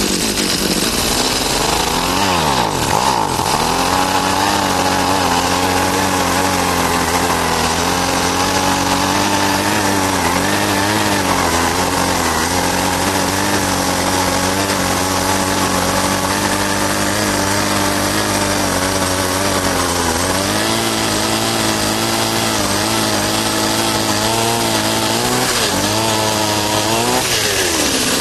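Gas-powered ice auger's two-stroke engine running at speed as the auger bores through lake ice. The engine note sags and recovers a few times under load, with a sharp drop and rise again near the end.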